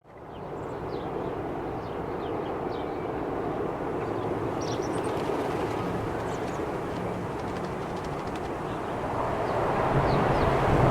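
Steady outdoor rushing noise with a low hum under it, growing louder near the end. Faint, short, high bird chirps are scattered through it.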